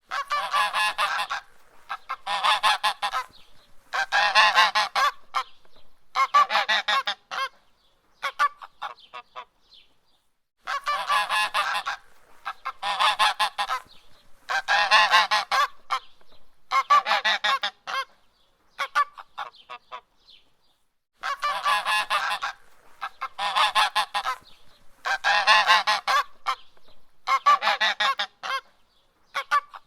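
Canada goose honking loudly in a repeating series: four long, harsh honks followed by a few short clipped ones, the series coming round again about every ten seconds. The uploader presents it as the call of an attacking goose.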